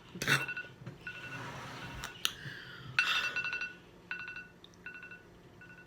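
Electronic timer alarm beeping in short repeated bursts of two high tones sounding together, with a couple of sharp clicks among them.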